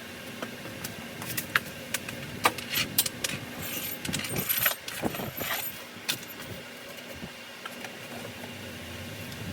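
Metal hand tools and engine parts clinking and knocking: a run of sharp clicks and knocks, some ringing briefly, then quieter for the last few seconds.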